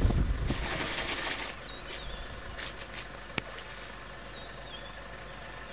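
African elephant drinking from a shallow stream, with a brief rush of splashing water about a second in as its trunk works the water. A small bird chirps twice in the background, and there is one sharp click a little past the middle.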